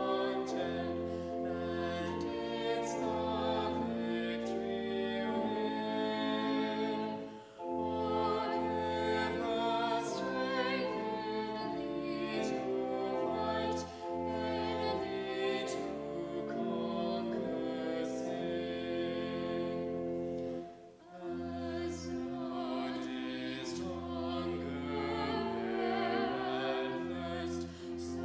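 A woman singing slowly with vibrato, accompanied by a bowed cello holding low notes. The phrases break briefly about every seven seconds.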